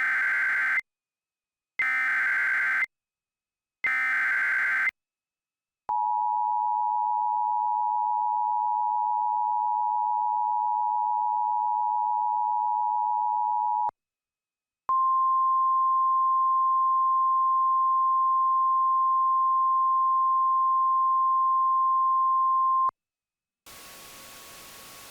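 An Emergency Alert System sequence: three short buzzy SAME digital header bursts about a second apart, then the two-tone EAS attention signal held for about eight seconds. After a brief gap comes the single-tone NOAA Weather Radio alert tone for about eight seconds, and a faint radio static hiss starts near the end.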